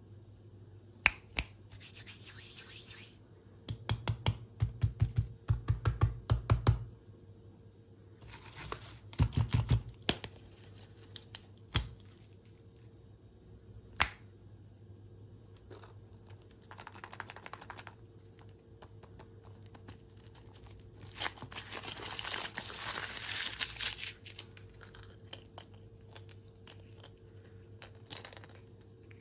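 Plastic candy packaging crinkling and being torn open in several bursts, between sharp clicks and taps of handling, over a faint steady low hum.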